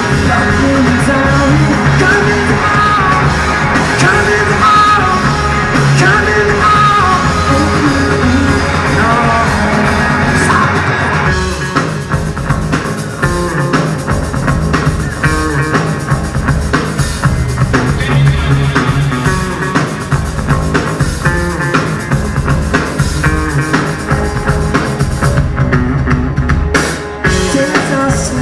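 Live rock band with keytar, electric guitars and drum kit playing an instrumental passage. A bending lead melody carries the first ten seconds or so. About eleven seconds in it drops to a sparser, drum-driven groove, and there is a short break in the sound near the end.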